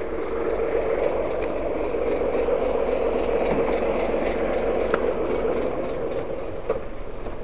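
Steady running of a truck's diesel engine, a little louder in the middle and easing off near the end, with a single sharp click about five seconds in.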